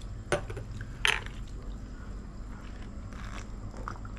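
Small glass tumblers of cola clinked together in a toast: two short sharp knocks, the louder about a second in, followed by soft sipping of the drink.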